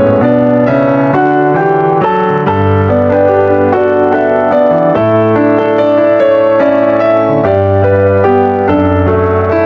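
Piano music: a flowing line of notes, changing about twice a second, over long held bass notes.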